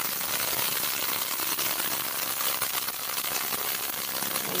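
Ultrasonic jewelry and eyeglass cleaner running, its water-filled tank giving off a steady, fine crackling hiss.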